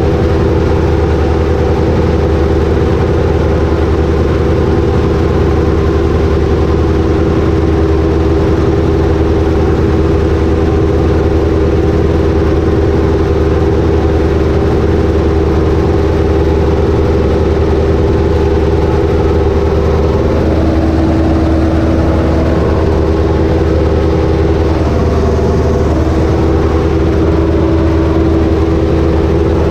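Ursus tractor's diesel engine running steadily under way, heard from the driver's seat in the cab. The engine note wavers and shifts briefly about two-thirds of the way through.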